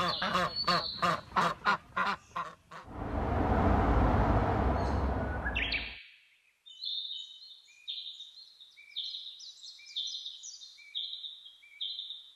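Added sound effects: a quick run of short pitched calls, then a rush of noise lasting about three seconds that cuts off suddenly, then high bird chirps repeating about once a second.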